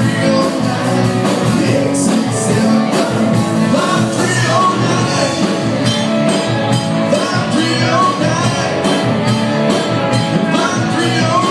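A live rock and roll band playing a loud up-tempo number with a steady drum beat, guitar and a singer.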